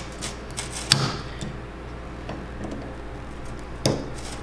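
Metallic clicks of snap ring pliers working the small snap ring on a steel front axle shaft, with a sharp click about a second in and another near the end, and faint ticks between.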